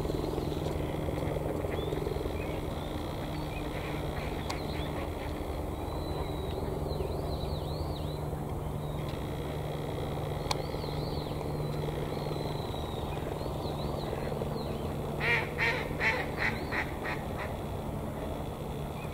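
Eurasian coot giving a quick run of about six short, sharp calls about fifteen seconds in. A steady low hum and faint high chirps of small birds run underneath.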